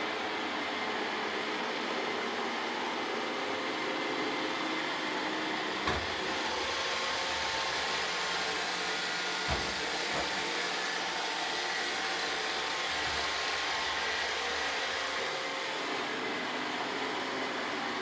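Roomba robot vacuum running steadily, with a short knock about six seconds in and another about nine and a half seconds in.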